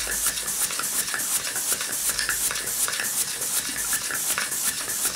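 Homemade single-cylinder model steam engine running on live steam: a quick, even run of puffs over a steady hiss of steam. It is an engine that still needs running in.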